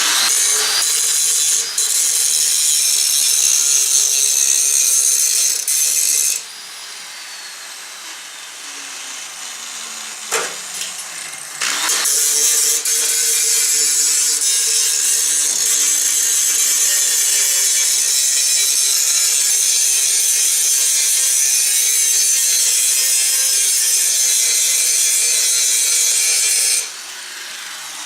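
Angle grinder grinding down fresh welds on steel patch panels, in two long passes: a shorter one at the start and a longer one from about twelve seconds in, with a quieter break between them. The grinding comes before touch-up welding of blow-through spots.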